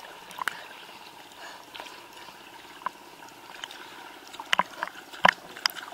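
Sea water lapping and slapping against a camera held at the waterline, with irregular small splashes and a few sharper slaps near the end.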